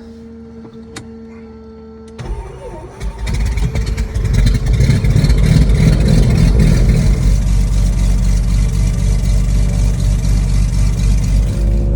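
Aerostar 702P's new turbocharged Lycoming TIO-540 piston engine starting. After a steady hum, the starter cranks about two seconds in and the engine catches a second or two later. It then runs loud and steady, turning a four-blade MT propeller.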